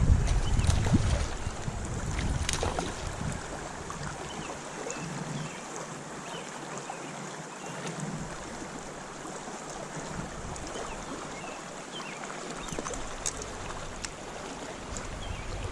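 Steady rush of flowing creek water, with gusts of wind buffeting the microphone as a low rumble for the first two or three seconds before it eases.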